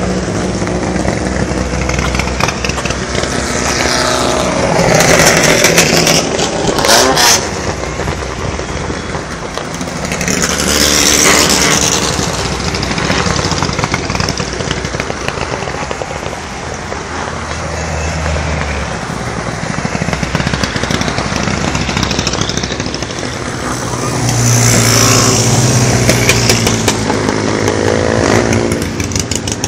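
Hill-climb race cars, including turbocharged Mitsubishi Lancer Evolutions, passing at full throttle one after another, engines revving hard and falling away as they go by. The loudest passes come about five, eleven and twenty-five seconds in, with a few sharp cracks around seven seconds in.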